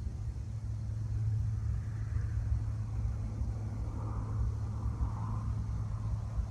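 Steady low outdoor rumble with a constant low hum underneath; no distinct event stands out.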